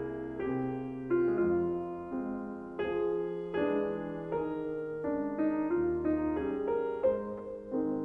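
Background piano music, with notes and chords changing about once a second.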